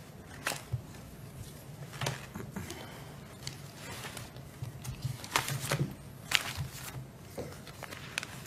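Scattered small clicks and taps of a disposable cup and hands moving on a desk, picked up close by the desk microphone, over a steady low hum. The loudest taps come a little past five seconds and again around six seconds.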